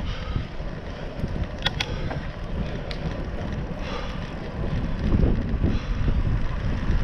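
Wind buffeting a GoPro's microphone and bicycle tyres rumbling on an asphalt path while riding. A few sharp clicks or rattles come through, a couple near the start and one about three seconds in.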